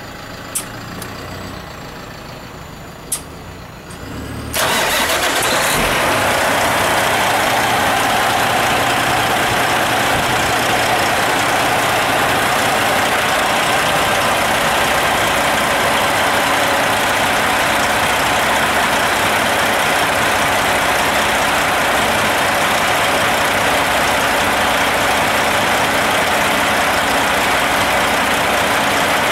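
Detroit Diesel Series 60 14-litre diesel engine running, heard close up in the open engine bay; it has been rebuilt with its rods and pistons rebalanced and is described as one of the smoother-running 14 liters. Two sharp clicks come in the first few seconds, then about four and a half seconds in the sound jumps suddenly to a much louder, steady rush.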